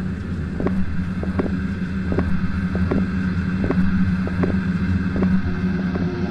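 A steady low drone with soft knocks repeating about every three quarters of a second.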